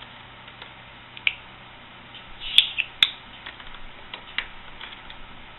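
A budgie (parakeet) making scattered short, high chirps and a few sharp clicks between bouts of talking, with two louder clicks about halfway through.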